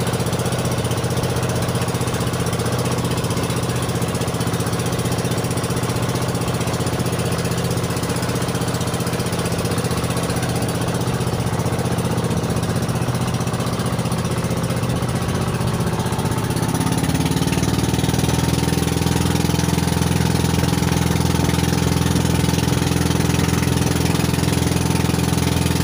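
Small fishing boat's engine running steadily under way. Around two-thirds of the way through, its pitch rises as it is throttled up, and it holds steady at the higher speed, a little louder.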